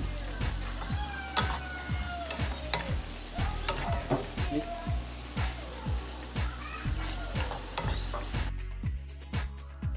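Butternut squash wedges sizzling in hot oil in a frying pan, tossed and stirred with scrapes and knocks against the pan. The sizzling cuts off near the end. A steady beat of background music, about two beats a second, plays under it.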